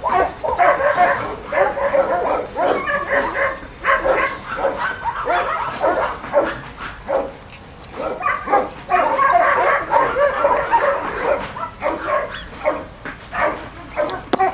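Toy and miniature poodle puppies yapping and whimpering in quick short calls, one after another, with a brief lull about halfway through.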